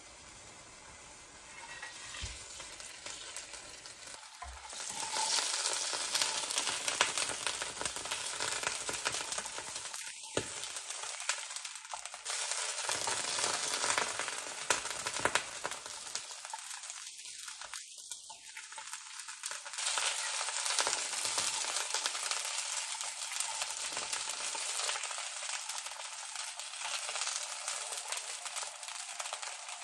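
Peeled hard-boiled eggs sizzling as they fry in oil in a frying pan, browning until golden. The sizzle grows louder about five seconds in.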